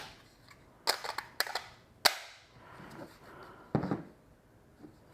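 A few sharp plastic clicks and knocks from Milwaukee M12 battery packs being handled, the loudest about two seconds in.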